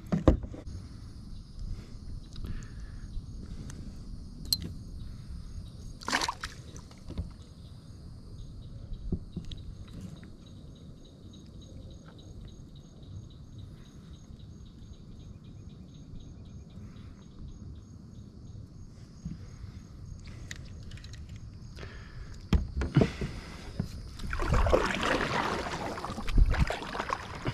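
Water lapping and small knocks of gear being handled in a plastic sit-on-top kayak, with one sharp splash right at the start as a largemouth bass is let go into the water. Over the last five seconds, kayak paddle strokes splash and drip loudly.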